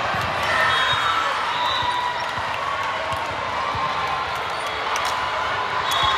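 Busy volleyball gym: a volleyball bouncing on the hardwood court with scattered thuds over steady crowd chatter.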